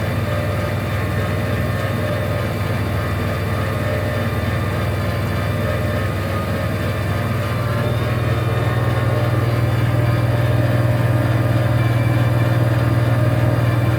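Generator running steadily, powering the travel trailer's electric front jacks as they raise the front of the camper; a steady low hum that grows a little louder about eight seconds in.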